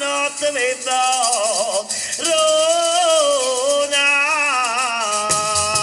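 Music: a shaker rattles steadily under a melody of long, wavering notes, and a low drum beat comes in near the end.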